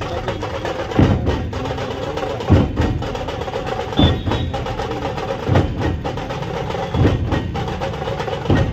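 Percussion music driven by drums: a heavy low beat about every second and a half, with quicker, lighter strokes between the beats.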